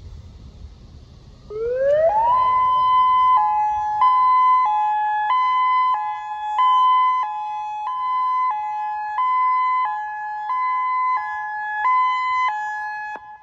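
Wind on the microphone, then about a second and a half in a Federal Signal Modulator electronic warning siren starts up for a test. Its tone glides up, then switches back and forth between two pitches about every half second, swelling and fading every couple of seconds as the rotating speaker column turns.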